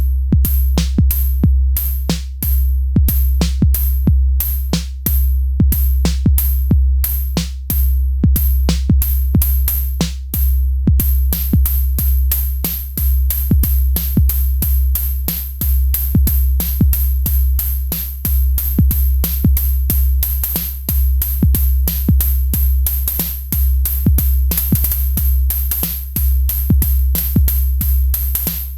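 Elektron Syntakt drum machine playing a looping electronic beat: a deep, booming kick under steady, crisp hi-hat ticks. About 11 seconds in, the hi-hats turn busier and denser.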